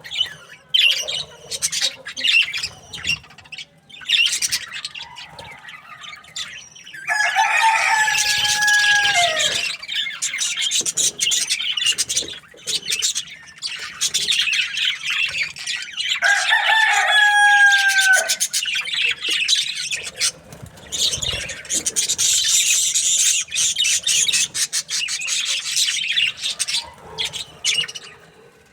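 Budgerigars chattering and chirping continuously in a dense, high twitter. A rooster crows twice over them, about seven seconds in and again around sixteen seconds in; each crow is a long held call that drops in pitch at its end.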